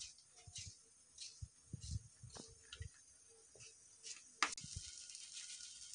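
Faint sounds of a kitchen knife cutting a tomato held in the hand, with wedges dropping into a glass dish: a few soft taps and clicks, the sharpest about four and a half seconds in.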